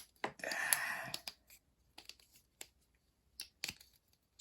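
Plastic snake puzzle being twisted segment by segment: a short burst of clattering about half a second in, then scattered sharp plastic clicks.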